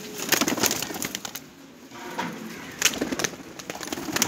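A flock of domestic pigeons cooing, with many short sharp clicks among the calls. The sound is busiest in the first second and a half and again from about three seconds in.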